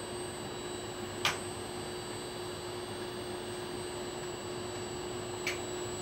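Inverter split air conditioner running on a test bench: a steady hum with faint fixed tones, broken by two short clicks, about a second in and near the end.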